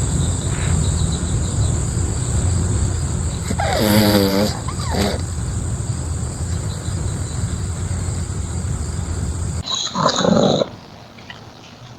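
A dog gives a short, wavering vocal call about four seconds in, over a steady low rumble; after a change in the sound near the end, a second brief dog call follows.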